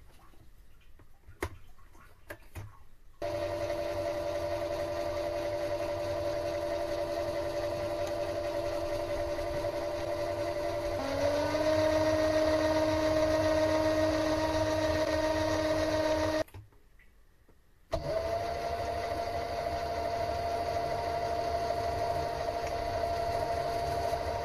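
Mini lathe's motor whining steadily as it spins the four-jaw chuck. A few light clicks come first, then the lathe starts about three seconds in; around the middle its pitch steps up and it gets louder, then it stops and starts again about a second and a half later.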